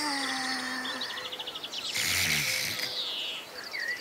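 Layered nature-style soundscape: an insect-like trill pulsing about ten times a second, with chirps and whistling tones that glide down in pitch. A rush of noise comes in about two seconds in and lasts about a second.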